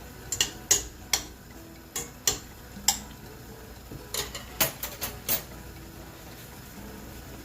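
Kitchenware clinking: about ten sharp knocks and clicks of utensils against dishes, scattered over the first five seconds, then stopping.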